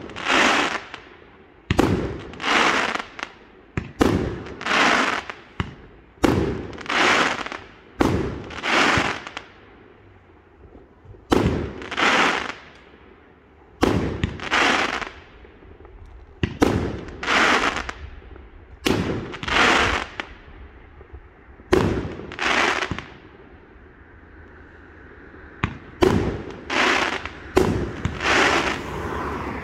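Fireworks display: aerial shells bursting, a sharp bang every second or two, often in pairs, each with a brief fading tail. After a short lull about three-quarters through, the bangs come faster toward the end.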